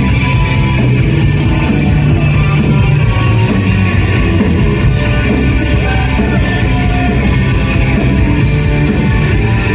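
Rock band playing live, loud: electric guitars, bass and drums.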